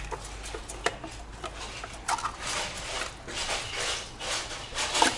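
A spoon scraping thick sour cream out of a plastic tub into an enamel bowl: soft scraping with a few short clicks of the spoon against the tub.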